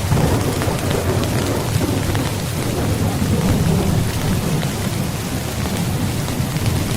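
Steady heavy rain with a continuous low rumble of thunder beneath it.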